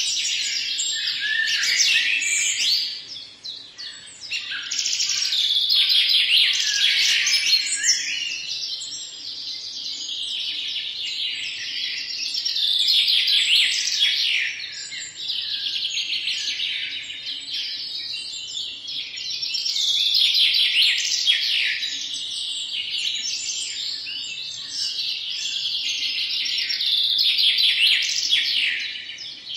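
Many birds chirping and singing at once: a dense chorus of overlapping high chirps that swells and eases every few seconds.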